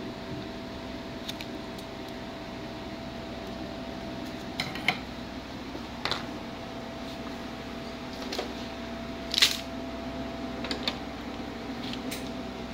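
Small metal tools such as tweezers being set down on a workbench and an opened LCD monitor panel being handled, giving several scattered clicks and knocks over a steady background hum.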